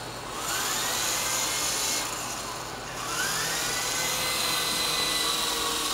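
Electric motor and rotor of a small remote-control helicopter whining as it spins up, rising in pitch, falling away about two seconds in, then spinning up again about three seconds in and holding, its pitch sagging slightly near the end as the battery runs flat.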